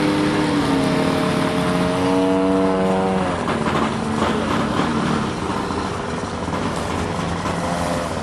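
BME 110cc two-stroke gas engine of a giant-scale radio-control Yak 55SP aerobatic plane in flight. Its note dips and then climbs in pitch, falls sharply about three seconds in, and runs lower and quieter after that.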